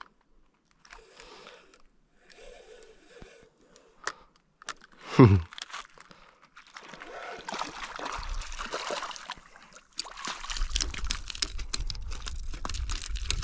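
Water splashing and sloshing at the river's edge, mixed with handling noise, with one brief loud whoosh falling in pitch about five seconds in.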